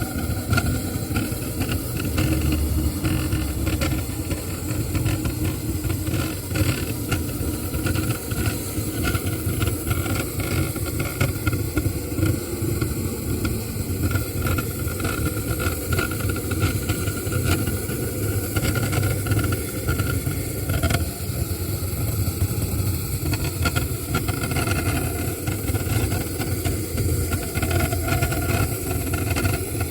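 A steady mechanical running sound, like a car engine idling, with no change in speed.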